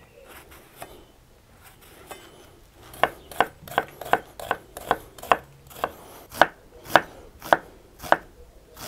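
Chef's knife dicing an onion on a wooden cutting board: quiet slicing at first, then from about three seconds in, steady chops about two a second as the blade knocks against the board.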